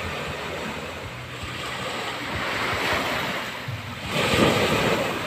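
Small sea waves breaking and washing up a sandy shore, the surf swelling and ebbing, with a louder wave breaking a little past four seconds in.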